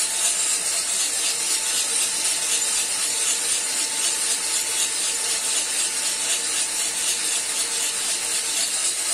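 Cormorant CR600 electric coffee roaster running with its drum turned up to near full speed: coffee beans rattling and tumbling in the rotating drum over the steady rush of the fan and a faint motor hum. The roast is early, well before first crack, so no cracking is heard.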